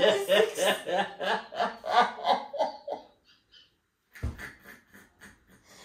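A man laughing in quick repeated bursts for about three seconds, then a single dull thump, followed by faint, breathy laughter.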